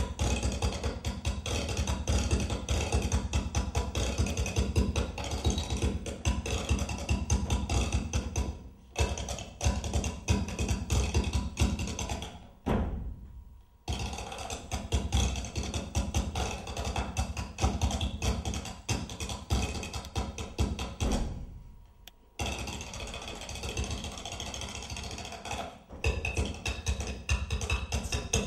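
Percussive music with fast, dense strikes, which stops briefly three times: near nine seconds in, around thirteen seconds and near twenty-two seconds.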